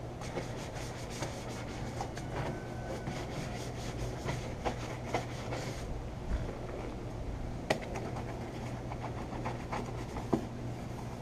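A brush scrubbing degreaser into a car's engine bay, in quick repeated rubbing strokes. Scattered sharp clicks and knocks come in between, the loudest about two-thirds of the way through.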